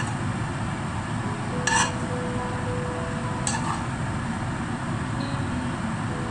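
A metal spoon clinking against cookware twice, about a second and a half apart, as sautéed capsicum is spooned from a frying pan onto a dish, over a steady background hiss.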